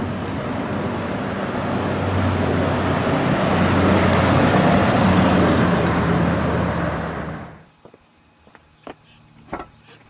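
1968 Ford Thunderbird's 429 V8 driving up and past on the road, a steady engine hum under tyre and road noise that grows louder to a peak about five seconds in. The sound then cuts off suddenly a little after seven seconds, leaving only a few faint clicks.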